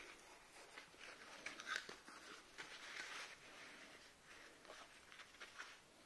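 Faint handling noise: leather work gloves rustling and small scattered clicks as the pump block and rotor of a disassembled refrigerator compressor are turned over in the hands.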